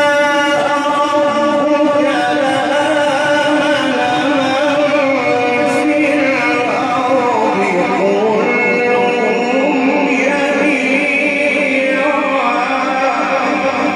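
A male Quran reciter's voice drawn out in long, melodically ornamented held notes of tajwid recitation, heard through a microphone. The pitch wavers throughout and dips about midway before rising again.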